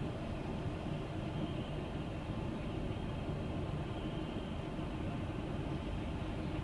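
Steady low rumble inside a coach bus's passenger cabin, the engine running as the bus moves slowly in stop-and-go traffic.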